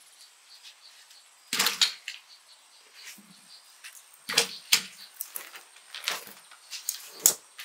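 Boiled corn ears dropped one after another into a plastic bucket: about half a dozen sharp knocks spread over several seconds, with a faint high steady tone behind.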